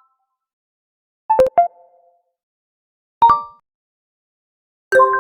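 Realme 13 5G phone alert tones: a quick two-note electronic chime about a second in, a single chime near the middle, and a fuller, richer chime near the end that rings on and fades. There is clean silence between the chimes.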